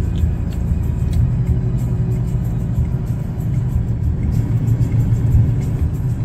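Background music with a steady beat and heavy bass, over the low rumble of a car heard from inside its cabin.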